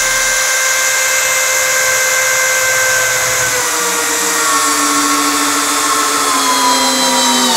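Bosch GSB 185-LI 18 V cordless drill driver driving a 1/4 × 80 hex-head screw, its motor running with a steady whine. From about three seconds in, the whine slowly falls in pitch as the motor slows under the growing load.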